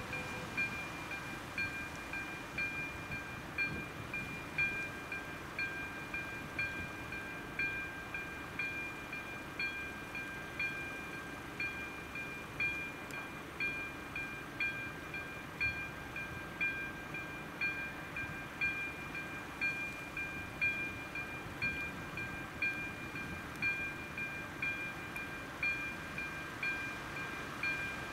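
Electronic warning bell of an AŽD 97 level-crossing signal ringing, an evenly repeating ding that keeps going throughout. It sounds while the crossing's red lights are active, warning that a train is coming.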